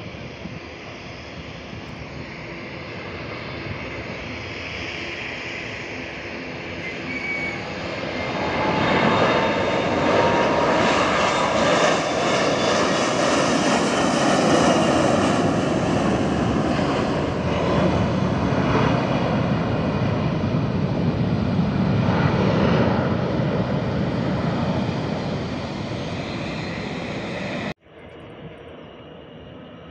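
Condor Airbus A320-family jet's twin engines at takeoff power, growing louder as it passes on its takeoff roll and lifts off, with a whine sliding up in pitch, then slowly fading. Near the end the sound cuts off abruptly to a quieter, steady jet engine sound from another airliner far off on the runway.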